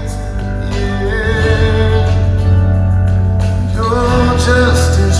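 Live rock band playing a worship song: a sung lead vocal over guitar, bass and a full band accompaniment. The vocal lines come near the start and again near the end.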